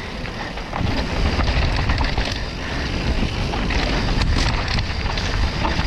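Wind buffeting an action camera's microphone during a mountain-bike descent, a steady low rumble. Tyres crunch over the rocky trail and the bike rattles, making frequent small clicks and knocks.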